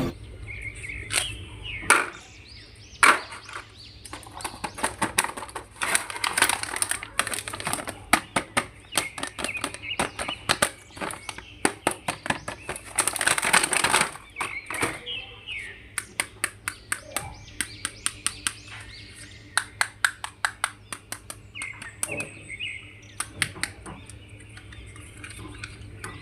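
Plastic toy packaging and figures being handled: crinkling, with many irregular sharp clicks and snaps, thickest about a third and halfway in.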